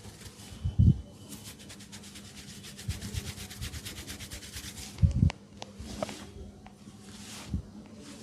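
Hands rubbing an oiled head and hair in a head massage, a fast rasping rub for about four seconds that then turns to slower, scattered strokes. Two dull thuds stand out, about a second in and about five seconds in.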